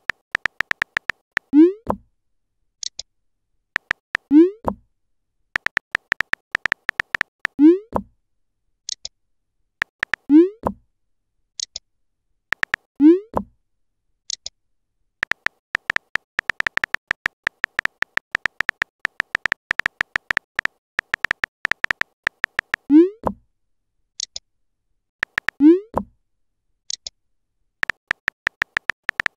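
Simulated phone-keyboard tap clicks from a texting-story animation, coming in quick runs as messages are typed out. Seven short rising 'plop' sounds mark new chat bubbles appearing, most of them followed a moment later by a brief high blip.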